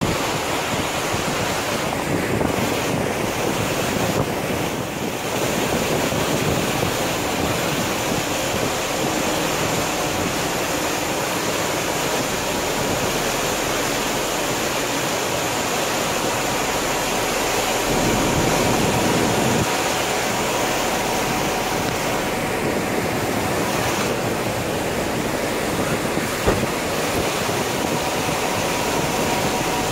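Wind buffeting a phone microphone over the steady rushing wash of water along a moving ferry, with a single brief knock near the end.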